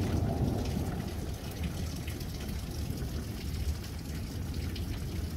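Rain falling steadily during a thunderstorm, with a low rumble underneath that eases off over the first second or so.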